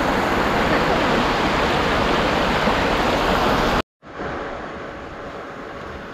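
Shallow creek water rushing over rocks, a loud steady wash. About four seconds in it cuts off abruptly and gives way to a much fainter steady hiss.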